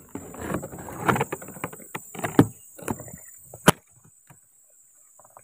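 Leaves and grass stalks rustling and crackling close against the microphone, with two sharp snaps in the second half; it stops about four seconds in.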